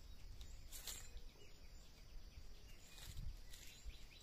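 Quiet outdoor ambience of faint bird chirps over a steady insect hum, with a few brief rustles and knocks as fallen mangoes are picked up from dry leaves.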